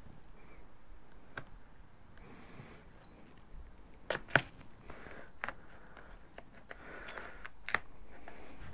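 Masking tape and cardboard being handled by hand: a handful of sharp snaps and ticks, the loudest a little past four seconds in, between soft rustling of tape and card.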